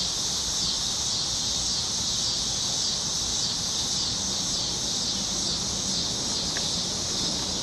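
Cicada chorus: a steady, high-pitched buzz that does not let up.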